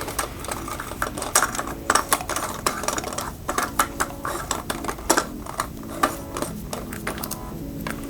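Irregular metallic clicks and clinks of a hand tool working on a mountain bike's stem and steerer-tube parts, a few sharp taps a second.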